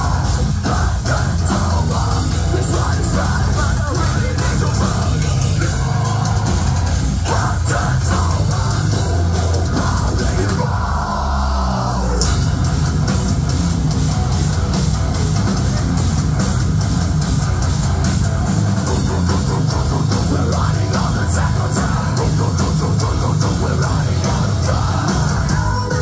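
A metalcore band with electronic elements playing live and loud: distorted guitars and drums. About eleven seconds in there is a brief break with a pitch sweep before the full band comes back in.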